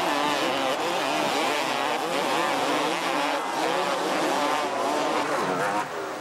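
Several two-stroke motocross bike engines revving hard together, their overlapping notes rising and falling constantly as the riders work the throttle over the jumps.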